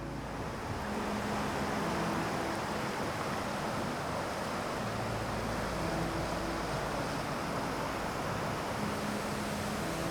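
Steady rushing of a mountain stream's water, an even wash of noise that swells in over the first second or so and then holds.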